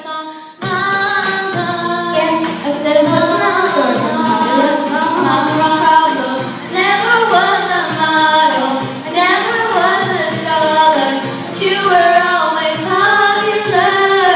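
Children singing a song, picking up again about half a second in after a short break.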